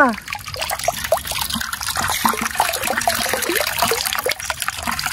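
Pool water trickling and splashing steadily, with many small irregular gurgles.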